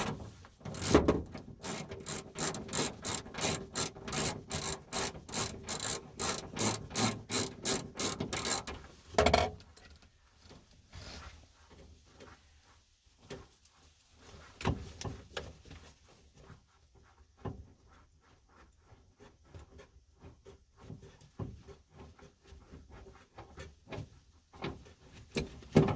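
Socket ratchet clicking in an even run, about three or four clicks a second, as the 13/16-inch bolt holding a seatbelt retractor is undone. A louder knock comes about nine seconds in, followed by quieter, scattered clicks and handling for the rest.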